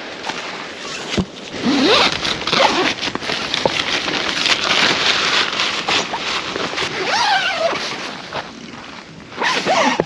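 A zipper being pulled several times in short rasping strokes.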